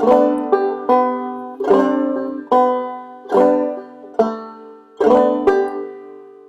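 Five-string banjo played clawhammer style, a slow phrase of single notes and brushed strums struck one after another. The last chord is left to ring and fades near the end.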